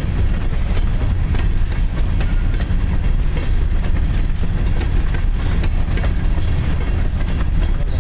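Covered hopper cars of a freight train rolling past close by: a steady heavy rumble of steel wheels on rail, broken by frequent sharp clicks.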